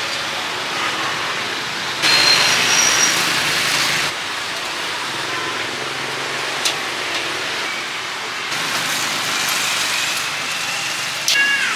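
Steady sizzling hiss of beef grilling at a street-food stall, mixed with the stall's background noise. It swells for about two seconds starting two seconds in, and there is one sharp click about halfway through.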